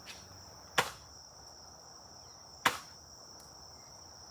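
Adventure Force Double Fire foam dart blaster fired one barrel at a time: two sharp pops about two seconds apart.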